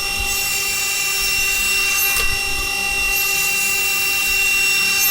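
Sherwood table saw running steadily at full speed, its motor and blade giving a constant high whine.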